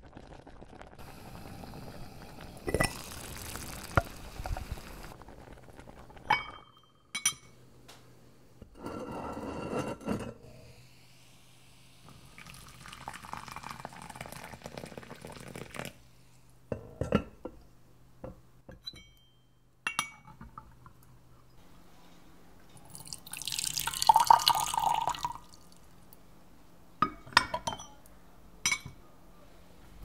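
Hot water poured in several pours from a side-handled clay kettle into porcelain tea vessels, the loudest and splashiest pour about three-quarters of the way through. Short, sharp clinks of porcelain cups and lids come between the pours.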